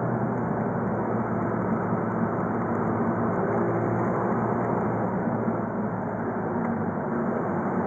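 Volkswagen Golf V's 2.0 TDI four-cylinder diesel (BKD) running steadily while the car is driven.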